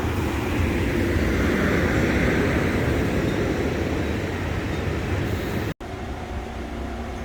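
Amtrak passenger train rolling past on the rails: a steady rumble of wheels on track. The sound breaks off abruptly near the end, and a quieter steady hum follows.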